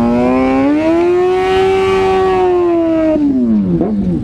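Sport motorcycle engine revving hard: the pitch climbs, holds high for about three seconds, then drops away near the end.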